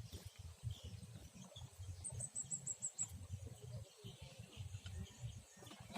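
A high-pitched chirping call, a quick run of about seven notes in a second, about two seconds in, over low, uneven rumbling.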